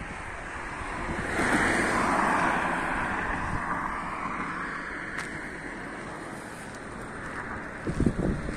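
Rushing wind and road noise from a moving camera, swelling for a couple of seconds about a second in, with wind buffeting the microphone near the end.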